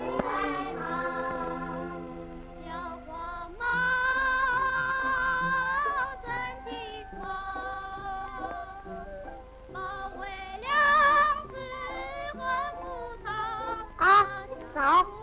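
A song in Mandarin, sung to an instrumental accompaniment, praising a little cat who stays up all night running in and out of the house. Near the end, two short, loud swooping sounds cut in.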